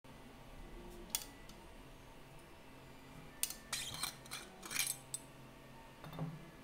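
Light clicks and clinks of small hard objects being handled: a single sharp click about a second in, a quick cluster in the middle, and a soft low bump near the end.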